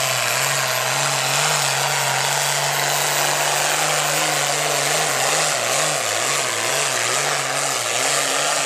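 Turbocharged diesel engine of a Pro Farm class pulling tractor running flat out during a pull, with a dense hiss over the engine note. The engine pitch holds steady at first, then wavers up and down through the second half.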